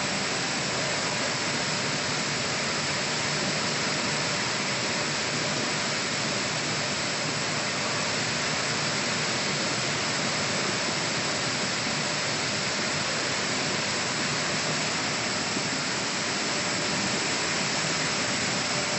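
Small maize grinding mill running steadily under load, a constant dense hiss of grain being milled with a faint motor hum under it.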